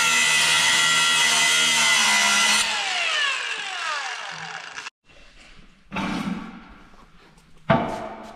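Electric power tool running at a steady high whine on the car's tack welds, then released and winding down over about two seconds, its pitch falling. Two sharp knocks follow, one about six seconds in and a louder one near the end.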